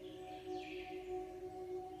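Quiet ambient meditation music: sustained, bowl-like ringing tones holding steady, with a brief high falling sweep about half a second in.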